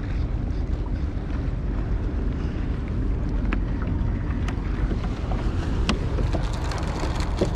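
Steady wind buffeting the microphone on a small boat on open water, with light ticks and knocks scattered through the second half.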